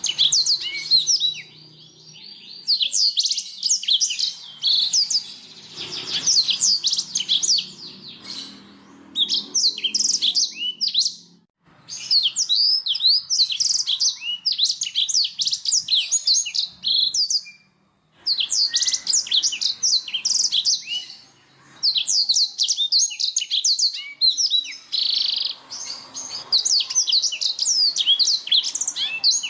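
Domestic canary singing: long phrases of rapid, high-pitched trills and chirps, broken by short pauses.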